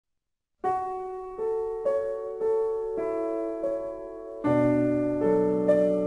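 Slow piano music: single notes and chords struck about twice a second, each fading away, beginning just after a brief silence. Deeper, louder bass chords join about four and a half seconds in.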